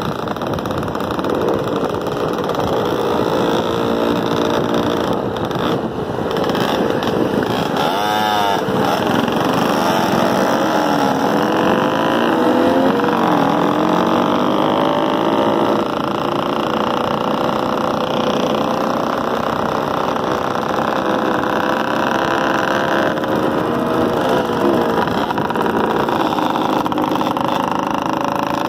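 Motorcycle engines running as a group of dirt bikes and a small Yamaha street bike ride along together, the engine pitch rising and falling with the throttle. A quick rev up and back down comes about eight seconds in.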